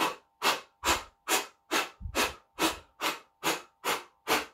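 A woman blowing short, sharp puffs of air through pursed lips, eleven in an even rhythm a little over two a second: a breathing exercise to warm up the diaphragm.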